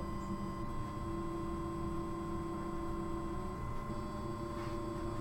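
3D printer running as it lays down the first layer of a print: a steady whine of its stepper motors over a low hum, with one lower tone coming in about a second in and dropping out a couple of seconds later.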